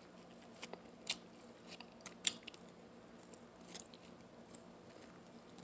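Mouth sounds of biting into and chewing corn on the cob: scattered soft clicks and smacks, the sharpest about a second in and just past two seconds.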